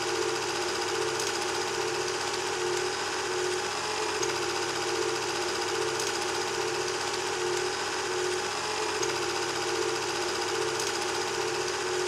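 Small electric model locomotive, a 16mm-scale Salford Models Ruston, running with its motor and worm gear drive whirring steadily. The whirr swells and fades slightly every couple of seconds, with a few faint ticks.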